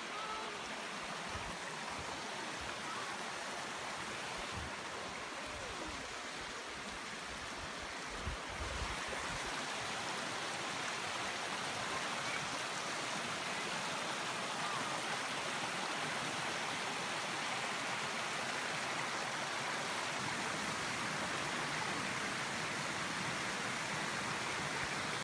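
A rocky mountain creek rushing over stones and small cascades, a steady flowing-water rush. A few low thumps come in the first several seconds, the loudest about eight seconds in.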